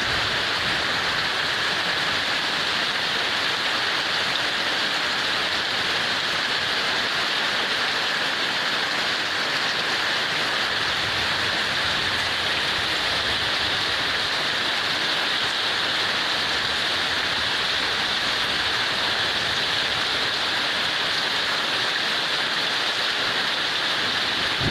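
Heavy rain falling steadily, an even unbroken hiss with no thunder or breaks.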